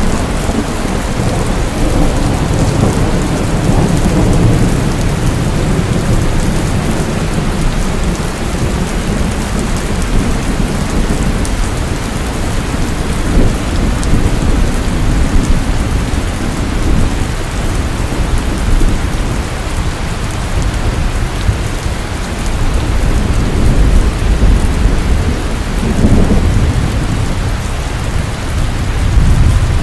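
Steady heavy rain falling, with low rolling rumbles of thunder that swell at times, strongest in the first few seconds and again near the end.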